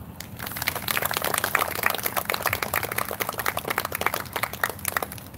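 Audience applauding: a dense patter of many hands clapping that starts about half a second in and dies away near the end.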